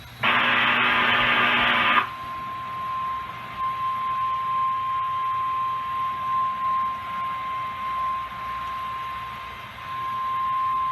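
A NOAA Weather Radio receiver sounding an alert. First comes a harsh buzzing data burst of about two seconds, the digital SAME header that codes the warning. It is followed by the steady 1050 Hz warning alarm tone, which wavers slightly and dips briefly near the end. This is the lead-in to a tornado warning broadcast.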